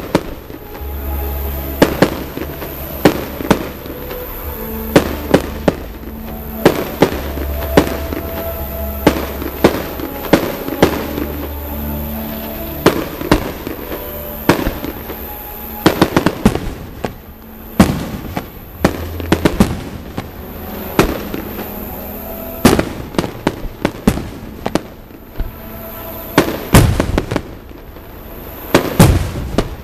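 Fireworks shells launching and bursting in a continuous run of sharp bangs, with a dense cluster of bangs near the end. Music plays underneath the bangs.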